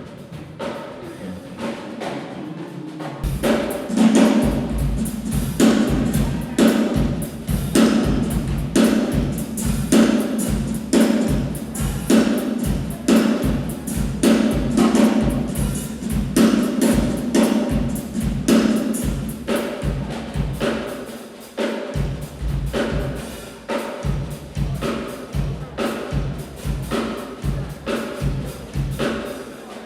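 Drum kit played non-stop in a sound check: lighter drumming without the kick for the first few seconds, then from about three seconds in the bass drum, snare and cymbals join in a fast, driving groove of dense, evenly spaced strokes.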